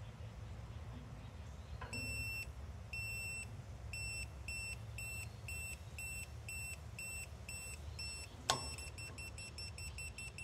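Handheld combustible gas leak detector beeping as it senses natural gas from an open, unlit grill burner. The high beep starts about two seconds in at about one a second, quickens to two a second, and after a sharp click near the end turns into rapid beeping of several a second, the quickening marking a rising gas concentration at the probe.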